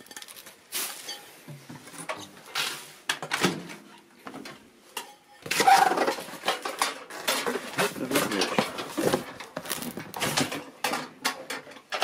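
A microwave's glass turntable plate and roller ring clinking and knocking as they are handled, with irregular rustling and bumping of the cardboard box and packaging.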